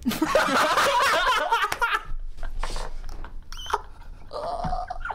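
Two or three men laughing together, loudest in the first two seconds, then trailing off into softer chuckles.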